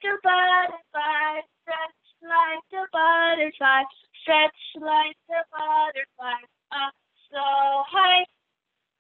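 A woman singing a song in short notes, with brief breaks between them and a few longer held notes.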